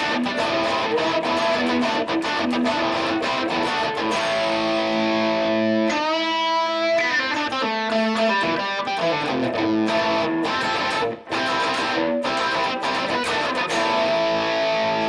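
1958 Gibson Les Paul Special electric guitar with P-90 pickups, on its bridge pickup, played through a modeled Vox AC30 amp with a treble boost for a little grit. It plays a run of picked notes with a sliding pitch glide about six seconds in, a brief gap near eleven seconds, and ends on a sustained ringing chord.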